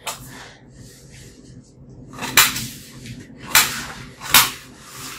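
Small knife cutting green bell pepper on a metal plate: a sharp crunch and clack with each cut, three loud cuts about a second apart in the second half.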